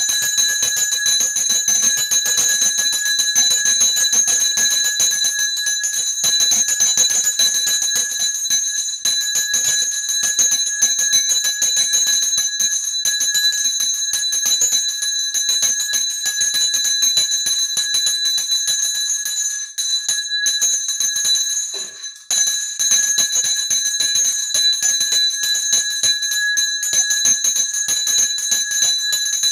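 Temple bell ringing rapidly and continuously during an aarti, the lamp offering to a Shiva lingam, with its clear ringing tones held steady. The ringing falls away briefly twice about two-thirds of the way through.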